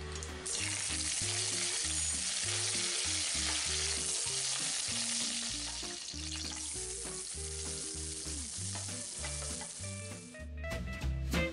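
Hot oil sizzling steadily in a pan as mustard seeds splutter and curry leaves fry, the tempering stage of a Kerala curry. The sizzle cuts off suddenly near the end.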